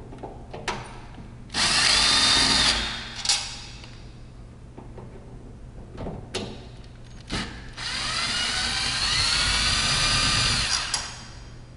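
Power drill with a Phillips bit backing out mounting-plate bolts: a short run of about a second, then a longer run of about three seconds near the end whose whine rises in pitch. A few sharp clicks fall between the runs.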